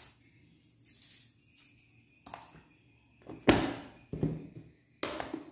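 A handful of short rustles and knocks from seasoning containers being handled: a plastic packet of MSG, then a plastic-lidded seasoning jar. The loudest knock comes about three and a half seconds in.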